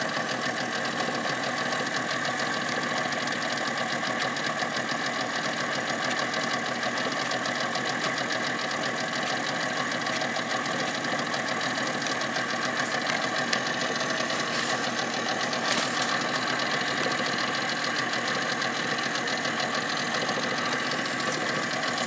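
Boat's outboard motor idling steadily.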